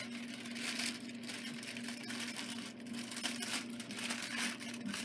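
Aluminium foil crinkling in irregular rustles as it is folded up tightly around a seasoned trout, over a steady low hum.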